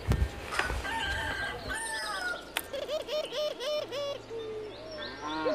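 Chickens clucking and calling in short, repeated notes, with higher bird chirps over them. A rooster starts to crow near the end.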